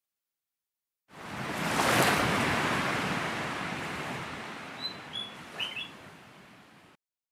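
Ocean wave sound effect: a wash that swells in about a second in and slowly ebbs away, with a few short bird chirps near the end.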